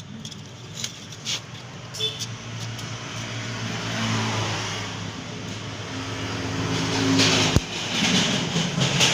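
Homemade thin-plate welding machine in use: a steady low hum, with a welding arc hissing and crackling that builds from about halfway and is loudest near the end. A few sharp clicks come in the first couple of seconds.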